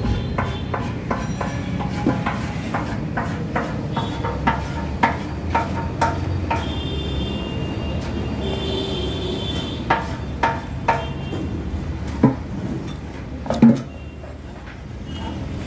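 A steady low hum with a run of light taps and clicks, then a few louder knocks near the end.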